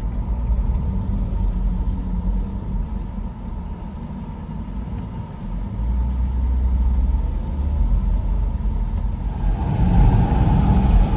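Outdoor tornado warning siren sounding one steady tone, faint under a heavy low rumble, then swelling louder about nine seconds in.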